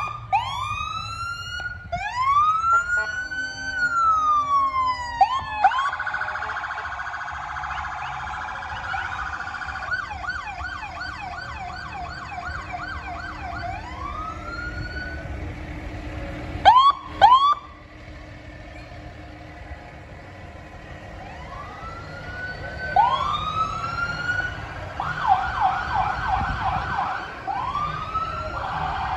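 Electronic sirens on passing police, fire and paramedic vehicles, sounded in bursts: rising whoop chirps and a slow rise-and-fall wail at the start, a fast repeating yelp, two loud short blasts about two thirds of the way through, then more whoops and a fast yelp near the end. Engine and road noise rumbles underneath.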